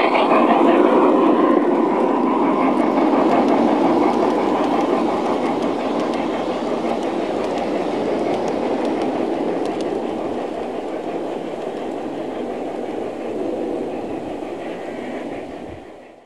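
LGB G-scale garden-railway train rolling past close by, its wheels rumbling and clattering along the track. The sound slowly grows quieter and fades out near the end.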